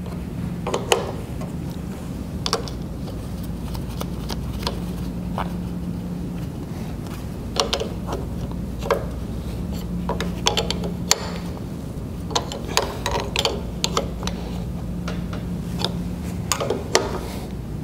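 An 11/16 wrench clinking and clicking against stainless-steel tube fitting nuts in scattered short clusters as the fittings are tightened, over a faint steady hum.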